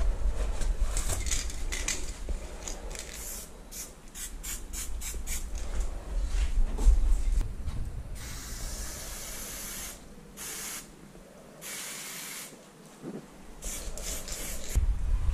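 Aerosol spray paint can spraying onto a wall: many short, quick bursts, then a few longer sprays of about a second each in the middle, and short bursts again near the end. A low rumble runs under the start and the end.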